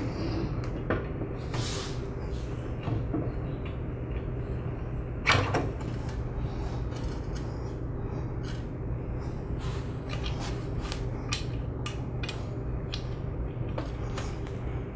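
Light metallic clicks and knocks of a metal pressure washer pump being turned and seated onto the motor shaft, with one louder knock about five seconds in. A steady low hum sits underneath.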